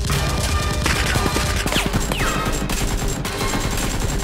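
Rapid gunfire sound effects over background music, with two falling whistle-like tones about two seconds in.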